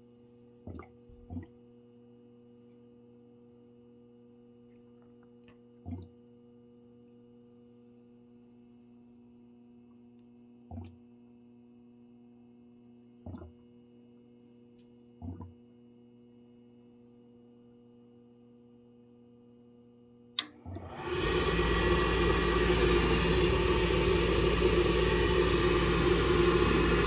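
Low electrical hum with a few faint knocks. About twenty seconds in, a relay clicks and the furnace's motor starts up and runs steadily, much louder than the hum.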